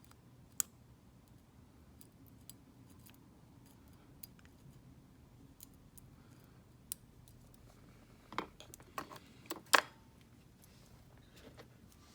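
Small metal clicks and taps of a pin tumbler cabinet lock and its tools being handled during disassembly, scattered and sparse, with a short run of sharper, louder clicks about eight to ten seconds in.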